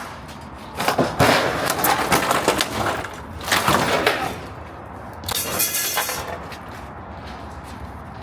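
Old shade structure being torn down: a dense run of crashes and cracks of breaking material from about a second in, another crash near the middle and a rattling clatter a little later.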